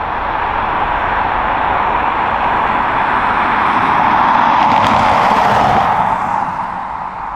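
Jet engine noise from a taxiing Boeing 777-300, a steady rushing roar that swells to its loudest about four to five seconds in and then fades.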